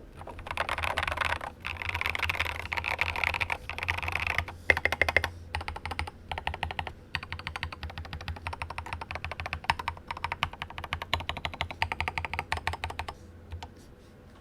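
Mechanical keyboard being typed on: a RAMA WORKS KARA SOYA with a polycarbonate plate, lubed Cobalt POM switches and SA-profile doubleshot ABS keycaps, giving deep, thocky keystrokes. Fast dense typing for the first few seconds, then steadier keystrokes, stopping near the end.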